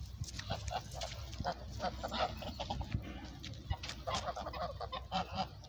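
A flock of white domestic geese honking in many short calls, several a second, overlapping one another.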